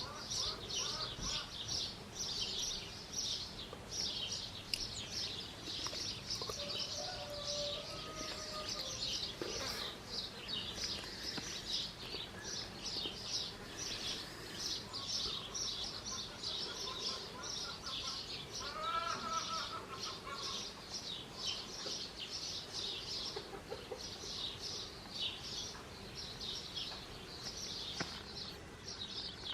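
Birds calling outdoors: a high chirp repeats about three times a second throughout, and a lower bird call sounds twice, about a quarter and two-thirds of the way through.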